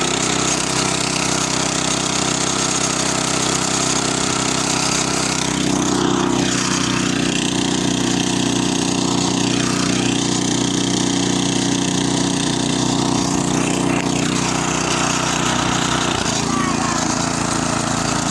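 Small engine of a two-wheel walk-behind tractor running steadily as it drives along and heads up a slope. Its pitch steps up about five seconds in and drops back near the end.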